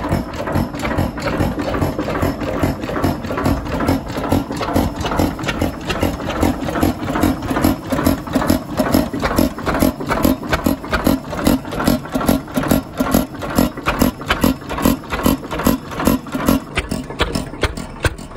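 A 6 hp Sundiesel O Type hit-and-miss diesel engine, built by H.V. McKay around 1923–24, running with a regular rhythmic beat.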